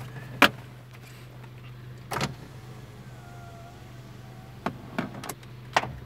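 Small car's engine idling steadily, with a few sharp clicks and knocks from the open driver's door and controls being handled: one about half a second in, one a little after 2 s, and three near the end.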